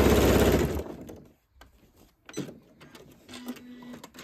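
Domestic electric sewing machine running at speed as it stitches binding onto a quilt edge, stopping about a second in. Then come light clicks and fabric-handling noises, and a short low hum in pieces near the end.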